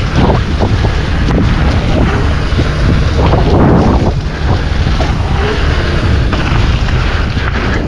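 Heavy wind buffeting on the camera microphone as the mountain bike is ridden, with a low rumble of tyres on the trail and a few short knocks from the bike over bumps.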